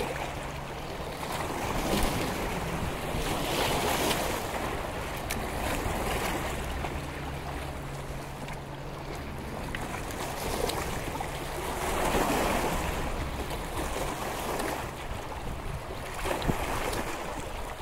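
Wind gusting on the microphone over small lake waves lapping, the rush swelling and easing every few seconds, with a low steady hum that comes and goes underneath.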